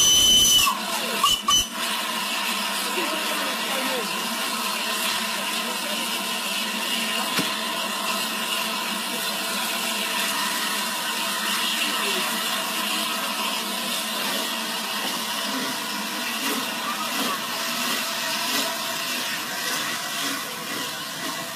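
Steam locomotive 60103 Flying Scotsman (LNER Class A3 Pacific) passing slowly at close range with a steady hiss of steam. A short high-pitched tone sounds at the very start.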